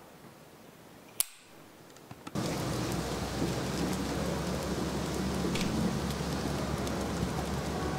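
A single sharp click, then about two seconds in a fire starts suddenly: paper burning in a wire-mesh wastebasket, crackling steadily with small pops.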